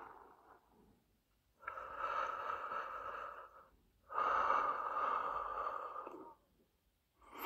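Guided-breathing recording from a Morphée sleep-meditation box, played through its small speaker. Two slow, audible breaths of about two seconds each, the second louder, pace a cardiac-coherence exercise for the listener to follow.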